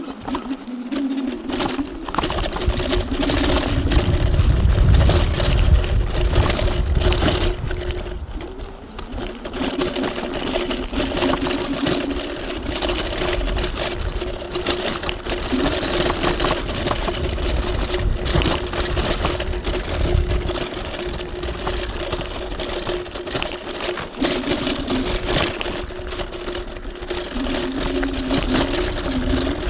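TRBK-M2 electric hyperscooter's motor whining steadily while riding an off-road trail, the pitch shifting a little as speed changes. Heavy low rumble from wind and rough ground comes and goes, loudest a few seconds in and again around the middle.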